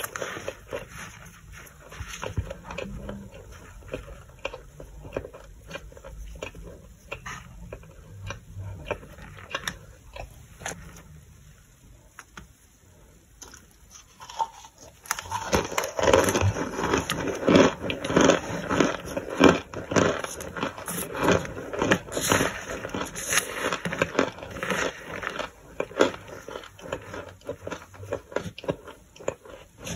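Crunching of toasted starch chunks: scattered soft crunches at first, a brief lull, then dense, louder crunching from about fifteen seconds in.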